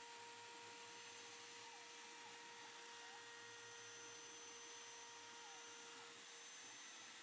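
CNC mill spindle running steadily while milling gear teeth into clear plastic on a 4-axis setup: a faint, constant hum and whine.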